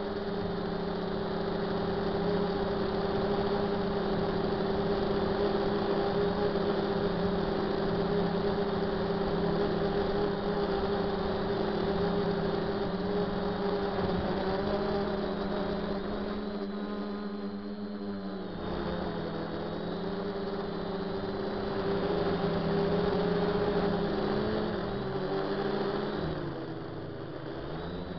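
DJI F450 quadcopter's motors and propellers humming steadily in flight. Near the end the pitch sags and comes back up as the throttle changes.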